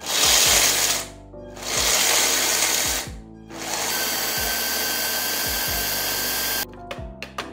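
Tokebi hand blender's chopper attachment grinding cashews into a fine meal: the motor runs in three pulses, two short ones and then a longer run of about three seconds, with the nuts rattling and grinding against the blade and bowl.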